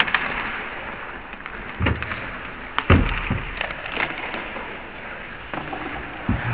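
Ice hockey play close to the bench: a steady hiss of skates on the ice with several sharp knocks of sticks, puck and bodies against the boards, the loudest about three seconds in.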